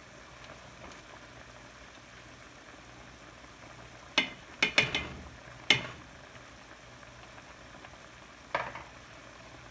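Pan of chicken stock and white wine bubbling steadily at a boil as it reduces. Four sharp clinks or knocks in quick succession land about four to six seconds in, and one more comes near the end.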